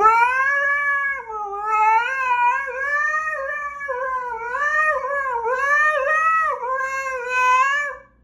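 Husky howling: one long call that wavers up and down in pitch, stopping just before the end.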